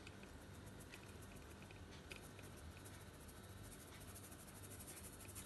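Faint soft scratching and light ticks of a metal mesh sieve being shaken by hand as flour sifts through it onto a plate, the strokes coming quicker near the end.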